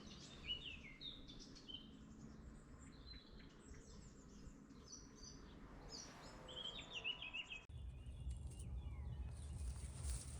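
Small songbirds chirping and trilling in quick, overlapping phrases over a faint outdoor background. About three quarters of the way in, the sound changes abruptly to a low rumble with fainter bird calls.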